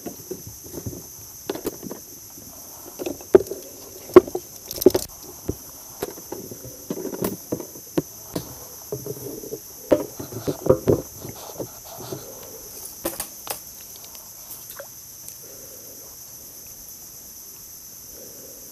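Scattered knocks, clicks and thuds of fish and gear being handled in a small wooden boat, loudest about 4 and 10 seconds in, dying down after about 14 seconds. Insects call steadily and high-pitched throughout.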